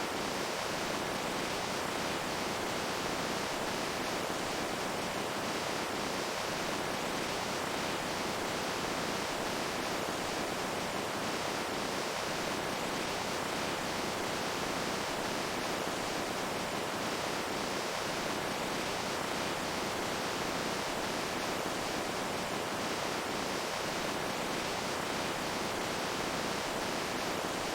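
Running water, a steady, even rush that stays unchanged throughout.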